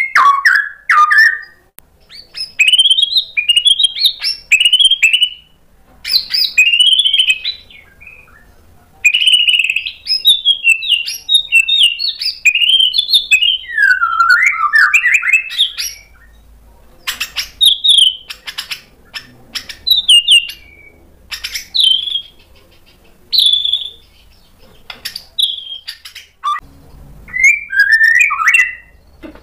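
Male white-rumped shama singing hard: loud bursts of rapid, varied whistles and sharp chattering notes, in phrases of a few seconds split by short pauses, the song full of the sharp fill-ins (isian) that shama keepers prize.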